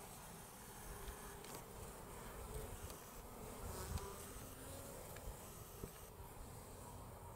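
Honeybees buzzing around the entrance of a top-bar hive, the buzz of single bees coming and going as they fly past. A soft low thump about four seconds in.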